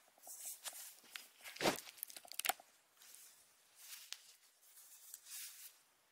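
Miniature pinscher puppy scrambling about and playing with soft toys on a quilted mat: irregular scuffling of paws and rustling of toys, with two sharp knocks a little under a second apart, about two seconds in.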